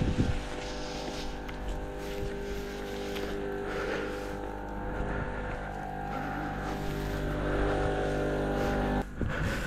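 An engine running steadily at one speed: a constant droning hum that cuts off suddenly about nine seconds in.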